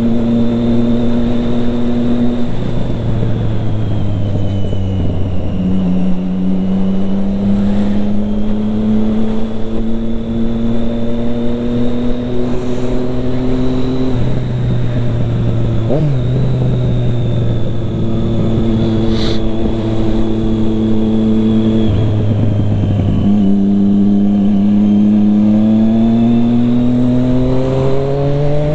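Triumph Street Triple 675R's inline three-cylinder engine through an Akrapovic exhaust, riding on the road. The engine note climbs slowly, drops several times as the revs fall away, and rises steadily near the end as the bike accelerates.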